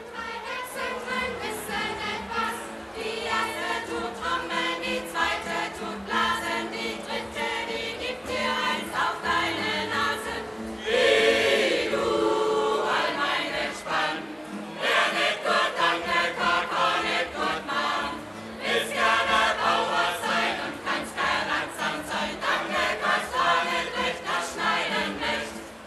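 Mixed choir of adults and children singing a song to strummed acoustic guitars in a steady rhythm, swelling louder for a few seconds near the middle.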